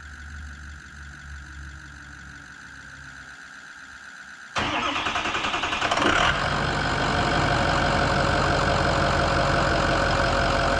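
Ford 6.0 L Power Stroke turbo-diesel V8 started after its fuel system has been primed: for the first few seconds only the faint steady hum of the electric fuel pump, then about four and a half seconds in the engine cranks and fires, settling into a steady idle about a second and a half later.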